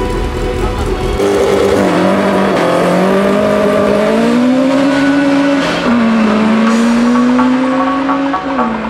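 Cars launching from a standing start in a drag race, one engine revving hard and climbing through the gears. Its note drops at an upshift just past the middle and again near the end.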